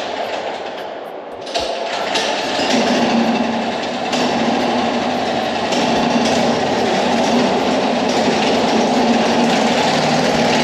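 Student-built 4x4 BAJA all-terrain buggy's single-cylinder engine running, a loud, steady mechanical clatter that grows louder about a second and a half in.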